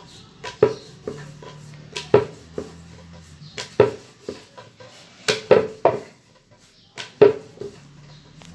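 Wooden rolling pin knocking and rolling on a wooden board as puri dough is flattened and rolled out: a string of irregular sharp clacks.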